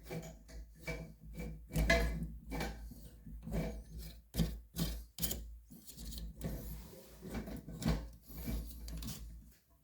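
Irregular plastic clicks, taps and scraping as the parts of a Fluidmaster toilet fill valve assembly are handled and fitted together.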